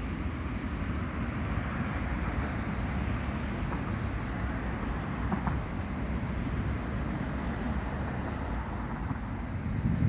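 Steady outdoor background noise: a low rumble with an even hiss above it, and a faint click about five seconds in.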